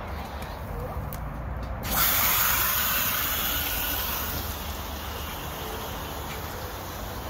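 Water from a garden hose hooked to an outboard motor's flush fitting, coming on suddenly about two seconds in as a loud hissing spray that slowly dies down: the cooling water being supplied before the engine is started.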